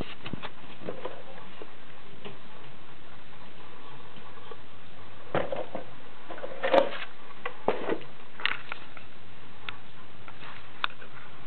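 Handling noise: scattered clicks and knocks over a steady hiss, with a small cluster just past the middle that holds the loudest knock.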